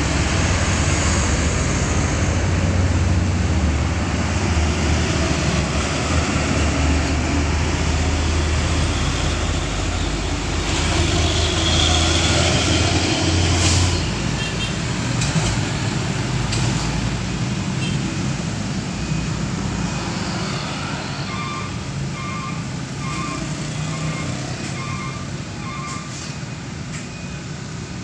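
Street traffic heard up close beside a truck, with the truck's engine running in a low rumble that cuts off about halfway through, leaving lighter traffic noise. Toward the end, a run of short electronic beeps repeats about once a second.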